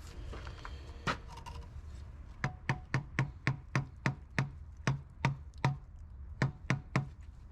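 A brick being tapped down into its mortar bed. The evenly spaced sharp taps start a couple of seconds in and come about three a second.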